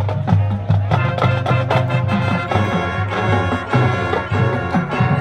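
Marching band playing a full passage: brass and woodwinds over a low bass line, with percussion strokes throughout.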